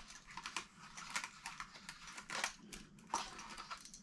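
Plastic packaging of a new electrical receptacle crinkling and crackling as it is handled and opened, in irregular sharp crackles and clicks.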